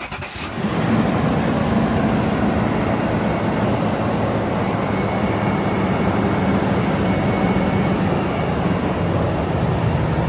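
2006 Toyota 4Runner's 4.7-litre V8 engine starting up and then idling steadily, running on freshly changed 5W-30 oil that is being circulated after the oil change.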